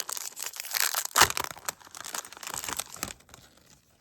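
A Pokémon TCG booster pack's foil wrapper being torn open and crinkled by hand, with irregular crackling that is loudest about a second in and dies down near the end.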